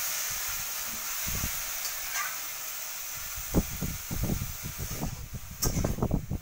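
Chopped mustard greens (lai pata) hissing steadily as they cook down in a wok-like kadai on a gas burner, releasing their water. From about halfway through, a spatula stirs them, with irregular low knocks against the pan.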